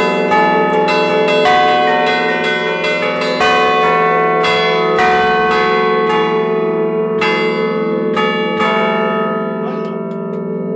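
Bronze church bells in a tower being rung, several bells striking in quick succession about twice a second over a steady ringing hum. The strikes stop about eight and a half seconds in, and the hum fades away.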